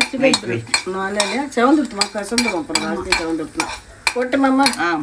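A metal ladle stirring and scraping in a non-stick kadai, clinking against the pan, as dry red chillies and fenugreek seeds fry in oil with a light sizzle.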